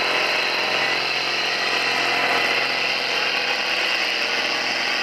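Ursus farm tractor's diesel engine running steadily under heavy load as it drags a tractor-pulling weight sled.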